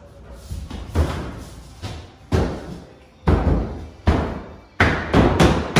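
A cut sheet of drywall being pushed and knocked into place, a series of about seven thuds and scrapes that come faster toward the end; the angled piece is a tight fit.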